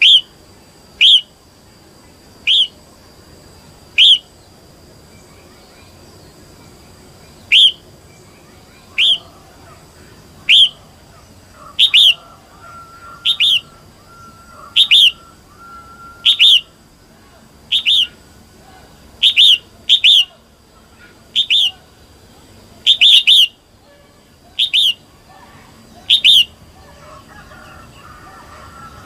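Female red-whiskered bulbul giving short, sharp call notes, one about every second and a half, a few of them doubled, with a pause of about three seconds near the start. This is the female's call that keepers use to rouse male bulbuls.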